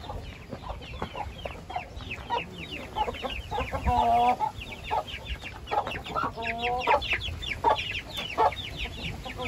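Indian game (Hint) chicks peeping steadily in quick, high, falling cheeps, while an adult chicken gives two longer, lower calls, about four and six and a half seconds in.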